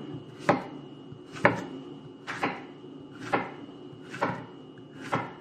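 Kitchen knife slicing a zucchini into rounds on a wooden cutting board: six sharp knocks of the blade on the board, about one a second.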